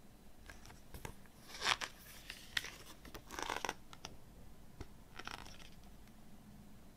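Pages of a stapled CD booklet being turned by hand: a few short paper rustles and swishes with light clicks, the loudest about two seconds in.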